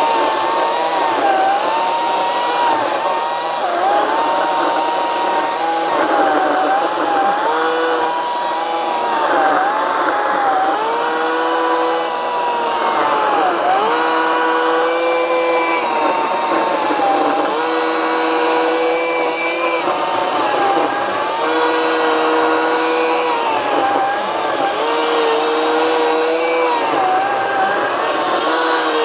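Ryobi 40V brushless cordless electric chainsaw cutting into a stump. Its high motor whine dips in pitch again and again as the chain bogs in the wood, then recovers. From about eight seconds in, lower steady tones come and go alongside it.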